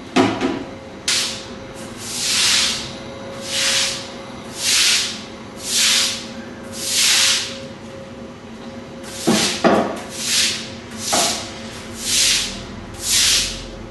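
Broom sweeping floodwater across a wet stone floor: regular swishing strokes about one a second, with a short pause partway through and a few knocks as the broom hits the floor.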